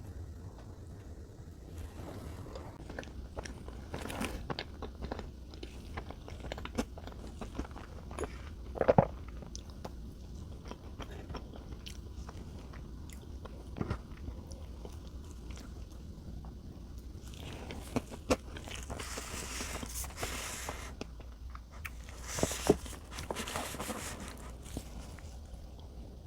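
Close-miked eating of Godiva salted caramel chocolate cake: chewing and biting, with scattered small wet clicks and a few louder smacks.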